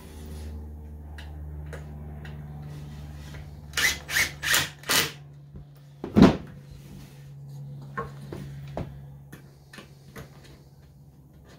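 Wooden stretcher-frame parts being handled and fitted: four quick scrapes about four seconds in, then one hard knock as a piece is seated, followed by a couple of light clicks, over a steady low hum.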